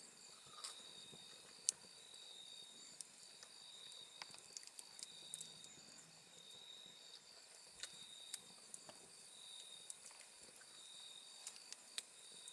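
Quiet night insect chorus: high-pitched trills pulsing steadily in a repeating pattern, with scattered faint sharp clicks.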